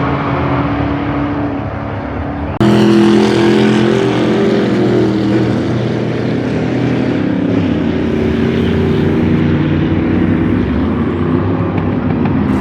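Loud car engines running, with an abrupt jump to a louder engine sound about two and a half seconds in.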